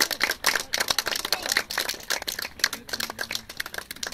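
Audience applauding: dense, irregular hand-clapping that thins out only slightly toward the end.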